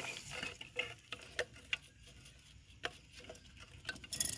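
Scattered sharp clicks and taps from LED floodlight housings and plug ends being handled and set down.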